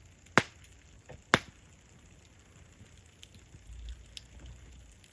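Wood campfire crackling, with two sharp loud pops about a second apart near the start and a few faint ticks after.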